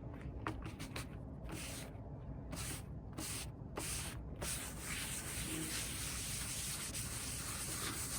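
Clarifying compound being rubbed by hand onto a plastic headlight lens with a paper pad in circular motions: a quiet, repeated swishing rub. It is choppier in the first half and evens out after about four seconds. This is the polishing stage that follows wet-sanding the yellowed lens.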